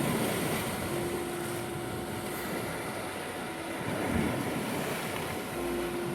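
Black Sea waves washing on the shore, swelling about four seconds in, under a steady 741 Hz tone with soft low sustained notes coming and going.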